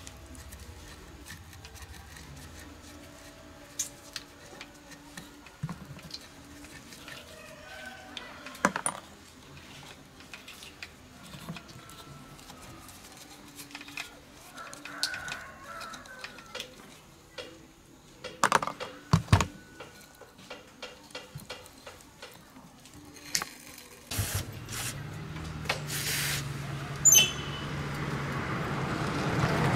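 Scattered clicks, taps and knocks of metal tools and parts being handled during a workshop repair. Near the end a steady motor hum comes in and grows louder.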